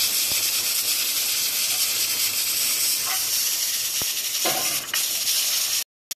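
Pressure cooker hissing steadily as steam escapes through the weighted valve on its lid; the hiss stops abruptly near the end.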